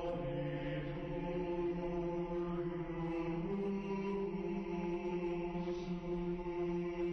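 Background music of low men's voices chanting in long held notes, the pitch stepping up about three seconds in.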